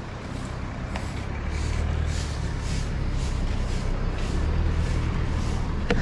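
Low steady rumble of a nearby motor vehicle engine, with soft regular footsteps about twice a second.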